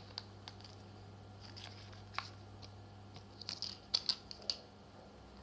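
Small sharp clicks and ticks from slime being handled and mixed with red colouring, scattered at first, then a quick cluster of louder clicks about three and a half to four and a half seconds in.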